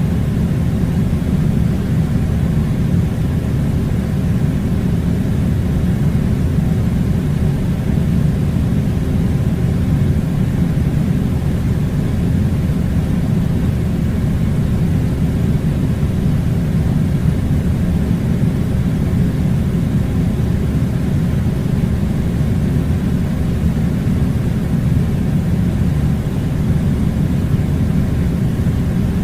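Air conditioner running: a steady low rumble that does not change.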